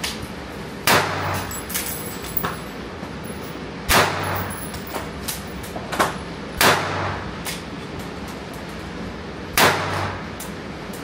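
Gunshots at an indoor shooting range: five loud shots spaced irregularly (about a second in, at four, six and nearly seven seconds, and near the end), with fainter shots in between.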